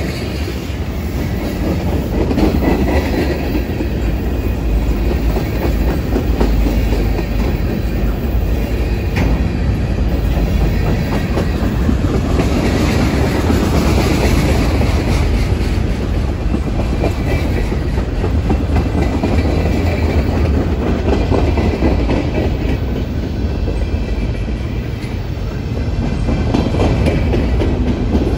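Freight cars rolling past close by: a steady, loud rumble of steel wheels on the rails, with constant fine rattling and knocking from the cars.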